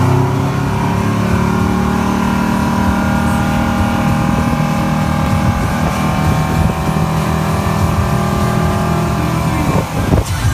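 Wakeboard tow boat's engine running steadily under way, with water rushing in the churning wake behind the boat.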